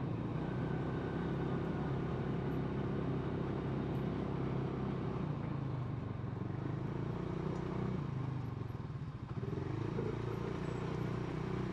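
Off-road buggy engine running steadily while driving, easing off briefly about nine seconds in and picking up again.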